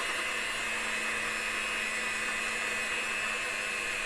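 Electric hand mixer running steadily on its lowest speed, its beaters whirring through a vegetable-shortening frosting in the bowl.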